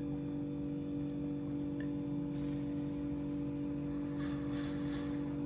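A steady low hum of a few unchanging tones, with faint handling scrapes and a soft rustle near the end as the metal spout is pushed onto a plastic water-bottle pump.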